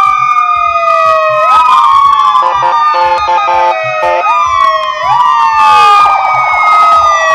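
Several emergency-vehicle sirens wailing at once, their slow rising and falling sweeps overlapping. Short horn blasts come in the middle, and one siren switches to a fast yelp near the end.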